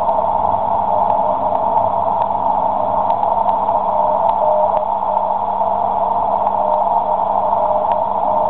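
Icom IC-735 shortwave receiver audio through a narrow CW filter: steady band hiss with the IZ0CWW/B 10-metre beacon's Morse tone faintly keyed in it. Scattered static clicks are heard too.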